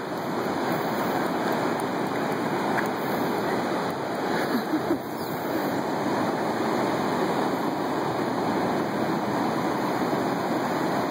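Ocean surf breaking and washing up a sandy beach: a steady rushing.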